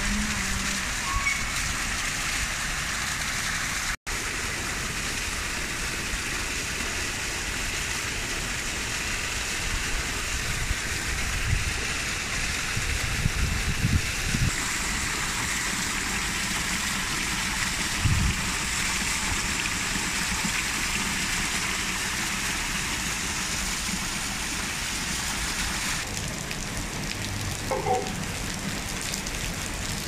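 Steady rainfall on foliage, stones and paving, an even hiss. It cuts out for an instant about four seconds in and shifts in tone a few times, with a few low thumps in the middle.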